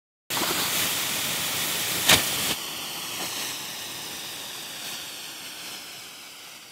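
Logo-reveal sound effect: a loud hiss that starts suddenly, a sharp hit about two seconds in, then a long hissing tail that slowly fades away.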